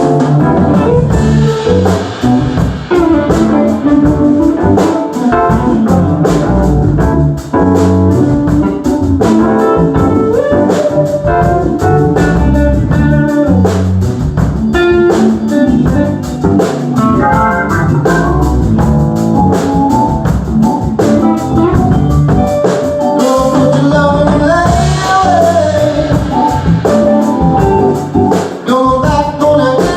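Live blues-rock band playing a loud, continuous jam, with organ and drums prominent.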